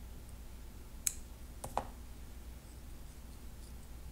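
Two short clicks, one about a second in and another just over half a second later, from fly-tying tools handled at the vise, over a steady low hum.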